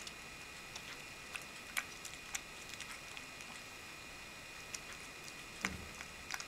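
Cat eating chicken broth from a bowl: faint, irregular small wet clicks of lapping and chewing, with one louder knock near the end.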